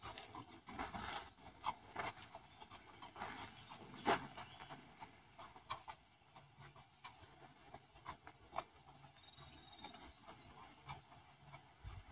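Horse walking on a sand arena: faint, irregular hoofbeats that grow quieter as it moves away.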